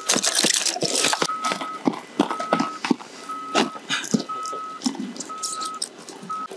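A reversing alarm beeping about once a second, a steady single-pitched beep of about half a second each time, with scattered clicks and rustles of gear being handled.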